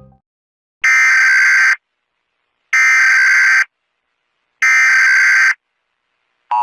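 Emergency Alert System SAME header: three identical bursts of harsh, buzzing digital data tones, each just under a second long, with about a second's gap between them. This is the coded burst sent three times at the start of an alert to trigger receivers and give the alert's origin, type and area.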